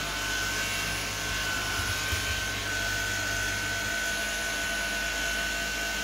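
Stick vacuum cleaner running steadily, a high whine over the rush of air from its motor.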